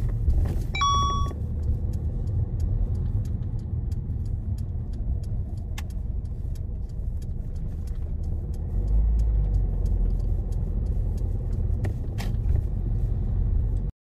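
Car driving: steady low engine and road rumble, with a short electronic beep about a second in and faint light ticks throughout. The sound cuts off abruptly just before the end.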